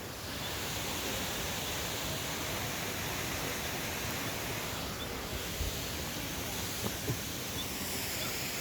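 Steady rushing of a large waterfall, an even wash of falling water that grows a little louder about half a second in.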